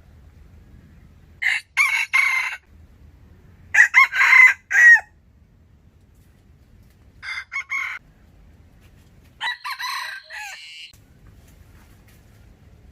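Wild chicken calling in four short bouts a few seconds apart, each bout broken into several harsh notes.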